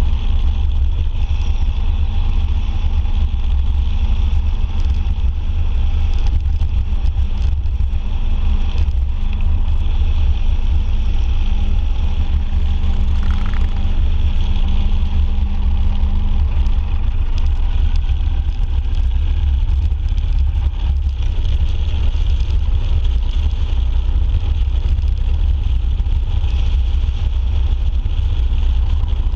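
Motorcycle cruising at a steady road speed: a loud, steady low wind rush on the handlebar-mounted microphone with the engine's drone underneath.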